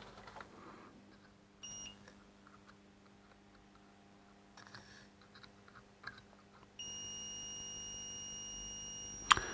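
Digital multimeter's continuity beeper: a brief beep about a second and a half in, then a steady beep held for about three seconds from near seven seconds in, as the probes find a near-zero resistance across a power transistor's pins, the sign of a short circuit. A few faint probe taps come between, and a sharp click near the end.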